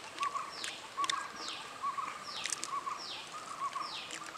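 Birds calling: a high call sweeping downward repeats a little more than once a second, with short lower chirps between the calls.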